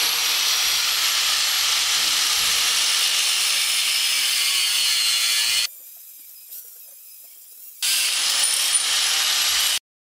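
Corded angle grinder cutting through a metal scooter handlebar tube, a loud steady grinding. It drops to faint for about two seconds a little past halfway, comes back, then cuts off suddenly near the end.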